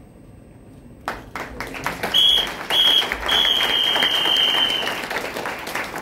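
Audience applause breaking out about a second in, with a high, steady whistle sounding three times over the clapping, the last one the longest.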